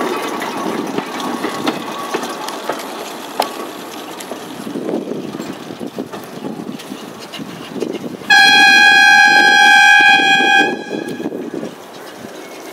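Purrey steam tram's steam whistle blowing one long steady blast of a single pitch about eight seconds in, the loudest sound here, stopping suddenly after about two and a half seconds. Before it, the tram's uneven running noise as it moves off along the track.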